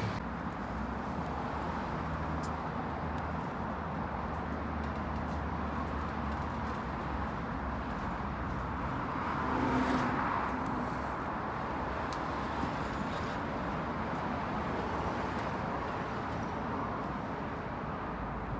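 Steady outdoor background noise with a low hum, swelling briefly about ten seconds in.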